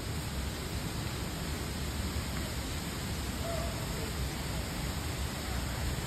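Tibumana Waterfall's falling water: a steady, even rush of noise.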